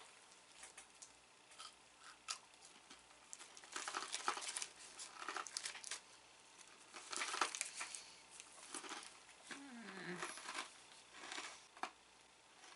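Snack wrapper crinkling and rustling as it is folded and handled, in irregular bursts that are loudest in the middle.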